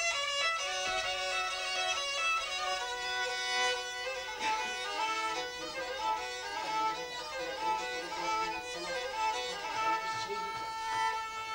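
Black Sea kemençe, a small bowed fiddle, playing a quick folk melody with several notes sounding together.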